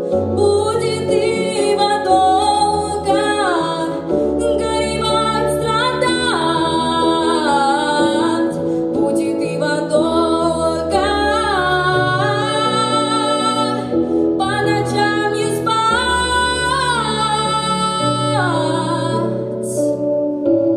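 A young woman singing solo into a handheld microphone, her melody gliding between held notes with vibrato, over an accompaniment of sustained chords and steady bass notes.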